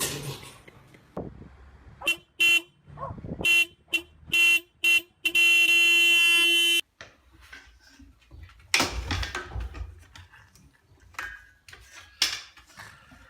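A horn honking: several short toots, then one long blast lasting about a second and a half.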